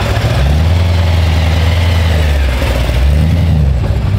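A car engine with a loud exhaust rumbling steadily, blipped up and back down about three seconds in, with another rev starting at the end.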